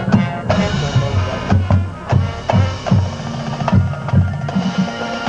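Marching band playing, with the bass drum hitting about twice a second and sharp percussion strokes over the wind instruments.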